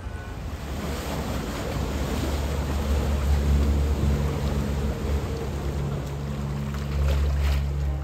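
A small motorboat's outboard motor running as its propeller churns the canal water, a low engine hum over a rushing wash of water. The engine swells twice, about three seconds in and again near the end.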